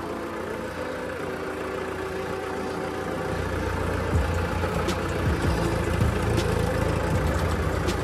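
Tractor's diesel engine running as the tractor drives along, heard from the driver's seat, with its low rumble growing louder a little over three seconds in.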